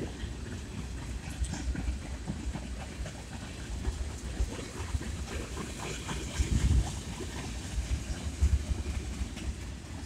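Freight train of tank cars rolling past, with an uneven low rumble and the wheels clicking over the rail joints.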